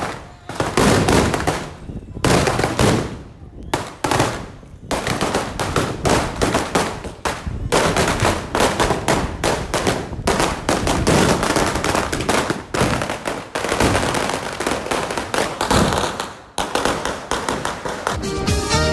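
Strings of firecrackers going off in rapid runs of sharp bangs, with a few short breaks, the longest about four seconds in.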